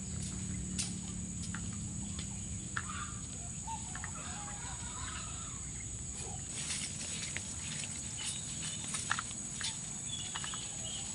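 Outdoor rural ambience: a steady high insect drone with faint scattered light clicks and knocks.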